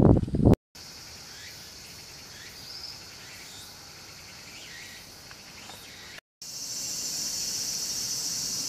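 Footsteps on a leaf-strewn gravel path break off about half a second in. Then a steady, high-pitched drone of late-summer insects runs on, with a few faint chirps over it, and grows clearly louder about six seconds in.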